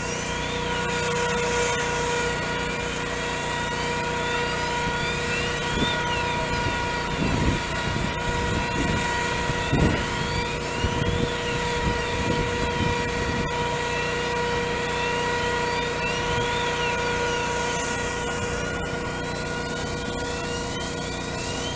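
An engine running steadily with a constant pitched hum, with a few low thumps around the middle.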